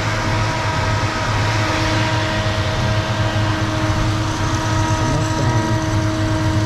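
Turbocharged Ford 302 V8 idling steadily, a low drone with a steady whine over it.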